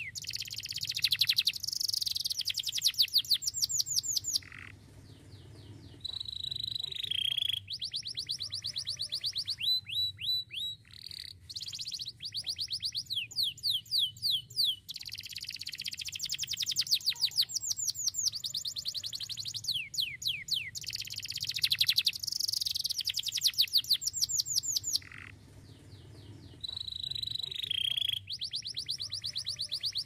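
A Starblue canary, a loper type that sings in long unbroken phrases, delivering a sharp song of rapid trills and quick repeated downward-sweeping whistles. The song breaks off briefly about four seconds in and again about twenty-five seconds in, then resumes.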